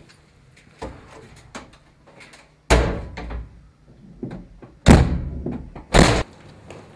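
Doors slammed shut three times, the second and third about a second apart, with fainter clicks and clunks of handling before the first slam.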